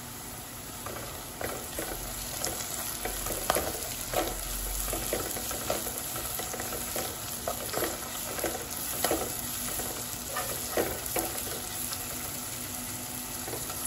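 Sliced onions, tomato and green chillies frying in coconut oil, sizzling steadily, while a plastic spoon stirs and scrapes them around the pan with irregular soft knocks, about one or two a second.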